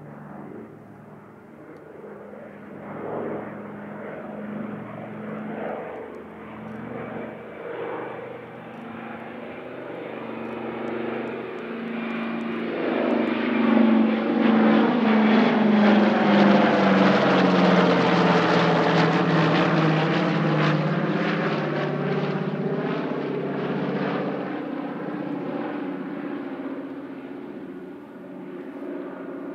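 Douglas C-47 Dakota's twin Pratt & Whitney R-1830 radial engines and propellers in a low flypast. The sound builds to its loudest about halfway through as the aircraft passes overhead, the engine pitch drops as it goes by, and then it fades away.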